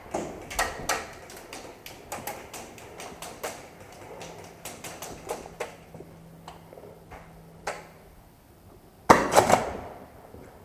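Airsoft guns firing in a small room: scattered sharp cracks and knocks, with a loud rapid cluster of shots about nine seconds in.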